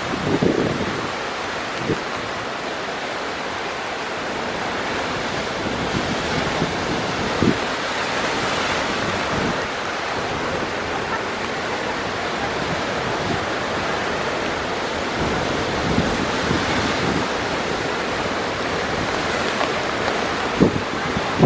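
Heavy storm surf breaking against a rocky shore, a steady roar of waves. Strong wind buffets the microphone, with several brief low thumps.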